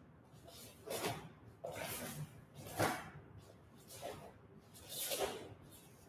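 Quick swishes of a taekwondo uniform (dobok) as a practitioner moves through the Taegeuk 7 form, about one a second with each strike and turn.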